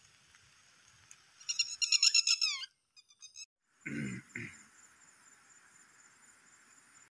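A rapid run of loud, falling call notes, lasting about a second and a half, from an animal that sounds like a bird, over a steady high hiss of insects. Two short low sounds come about four seconds in.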